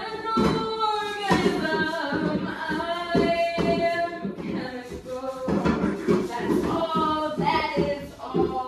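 A woman singing unaccompanied, holding long drawn-out notes that slide up and down in pitch.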